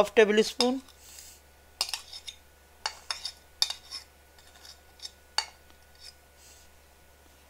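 A spoon clinking and tapping against a ceramic spice dish, knocking ground garam masala into a glass bowl: a string of light, separate clinks between about two and five and a half seconds in.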